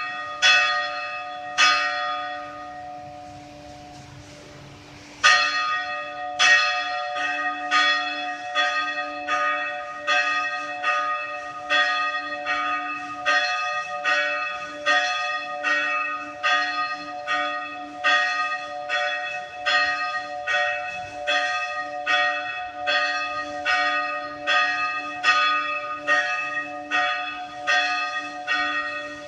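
Church bell tolling: two strokes at the start, a pause of a few seconds, then a steady run of strokes somewhat faster than one a second, each left to ring on.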